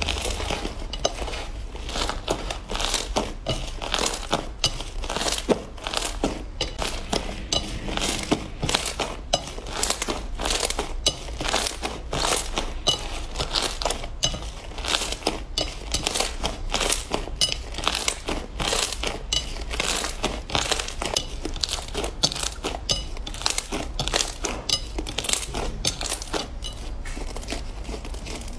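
Shimmery green slime squeezed, stretched and kneaded by hand, giving a dense, steady run of small sticky crackles and pops.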